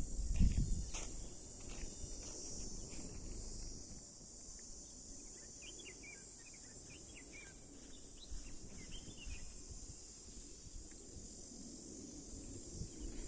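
Steady high-pitched insect chorus, with a scatter of short bird chirps in the middle and a couple of low thuds at the start.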